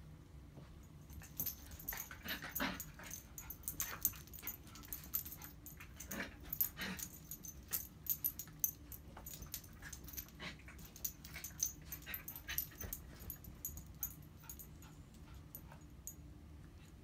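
Small dogs play-fighting, with short whimpering and growling calls among many quick clicks and jingles. The activity is busiest from a little after the start until about three-quarters of the way through.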